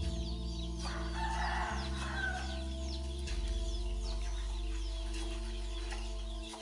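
Chickens clucking, with many short, high, falling peeps all through, over soft background music of low held notes that change every couple of seconds.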